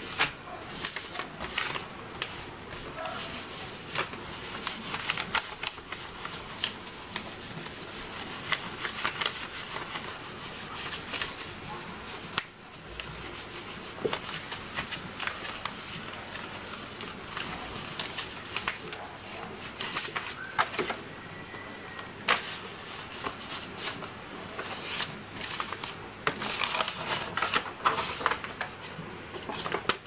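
Hands rubbing and smoothing paper flat against a notebook cover on a table: a continuous dry swishing and rustling of paper with many small ticks and crinkles, busier near the end as the paper is handled and lifted.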